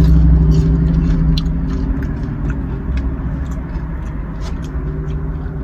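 A car engine idling, a steady low hum, with scattered small clicks and crunches of someone eating. The hum's pitched part fades out about halfway through.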